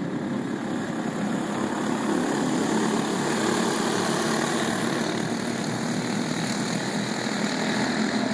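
A pack of racing karts running together at speed on a dirt oval, their small engines buzzing as one steady, unbroken drone.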